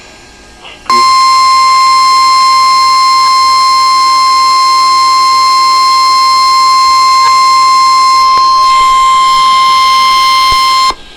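NOAA Weather Radio's 1050 Hz warning alarm tone: one steady, unbroken, loud tone starting about a second in and cutting off abruptly after about ten seconds. It signals that a warning broadcast follows, here a special marine warning.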